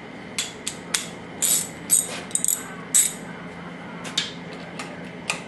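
Socket ratchet clicking in short, uneven runs as cylinder head bolts are snugged down a little at a time.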